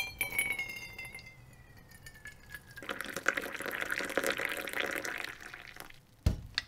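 Coffee poured from a stovetop moka pot into a metal mug. At first the stream sets off a ringing tone that falls steadily in pitch as the mug fills, then comes about three seconds of splashing pour. Near the end there is one sharp thud as the pot is set down.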